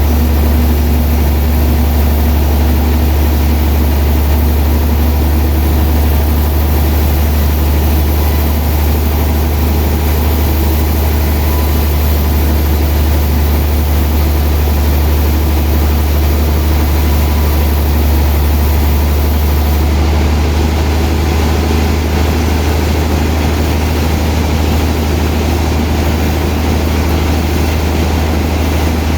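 Sawmill machinery running steadily, a loud, even low hum with a wash of noise above it.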